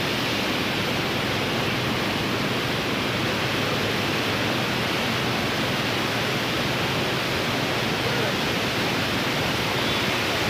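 Steady rush of muddy floodwater pouring across a flooded road and over a low causeway.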